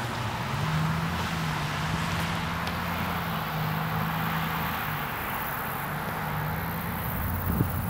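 Road traffic on a residential street: a steady wash of noise with a low, even hum.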